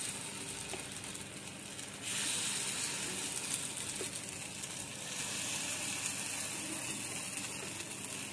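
Rice and urad dal batter sizzling in hot oil in the cups of an appe pan as spoonfuls go in, a steady crackling hiss that gets louder about two seconds in and again about five seconds in.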